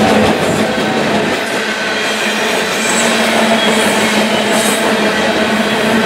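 Freight train's covered hopper cars rolling past at high speed: a loud, steady rush of steel wheels on rail, with a steady hum running through it.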